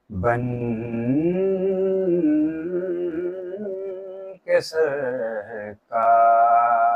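A male voice singing a naat, an Urdu devotional poem, holding long melismatic notes with a wavering pitch, broken by brief pauses about four and a half and six seconds in.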